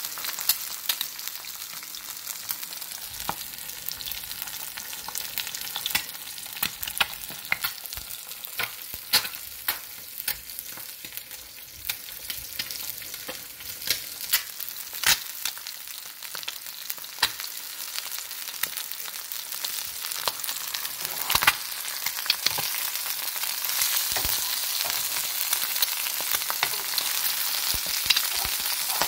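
Eggs frying in oil in a nonstick pan: a steady high sizzle with frequent sharp pops and crackles of spattering oil. The sizzle grows louder in the last several seconds.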